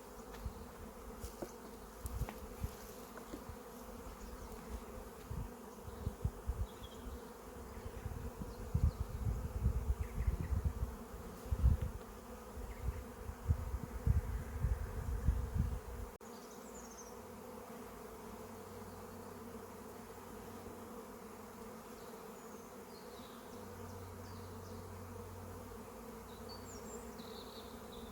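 Honeybees buzzing steadily around the hives, a continuous hum. Through the first half, low thumps and rumbles on the microphone come and go, stopping abruptly about sixteen seconds in.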